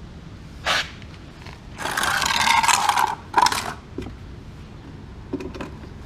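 Short scraping noises from objects being handled: a brief scrape, then a longer one of about a second, then another brief scrape, followed by a few light clicks.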